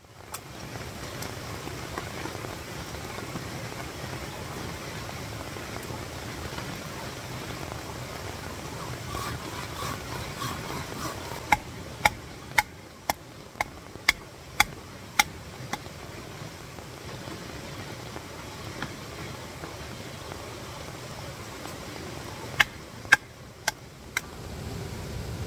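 Sharp knocks of a hatchet being struck on its back to split a small log on a chopping stump: a run of about seven strikes roughly half a second apart in the middle and a shorter run of about five near the end. Under it the steady rush of a mountain stream and rain.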